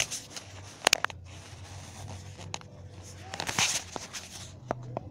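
Scattered clicks and knocks, with a brief rustling scrape about three and a half seconds in, over a low steady hum.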